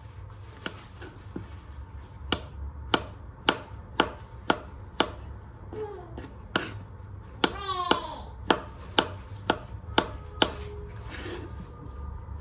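A chef's knife slicing button mushrooms on a cutting board, the blade knocking the board in a steady run of sharp chops about two a second. A brief high gliding sound comes partway through, over a steady low hum.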